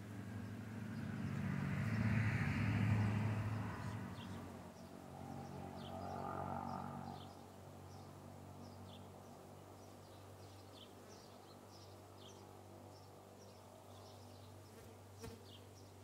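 Honeybees buzzing around a nuc box entrance: the buzz swells loud in the first few seconds as bees fly close, swells again around six seconds, then settles to a faint steady hum. A single sharp click comes near the end.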